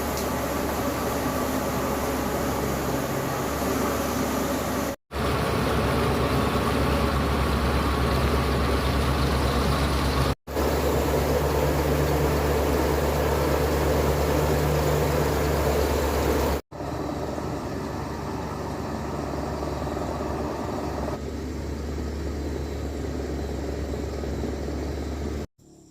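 A steady engine running with a strong low hum. It cuts off abruptly four times, a few seconds apart, as the clips change.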